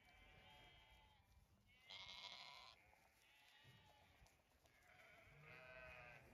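Near silence with two faint Zwartbles sheep bleats, one about two seconds in and another near the end.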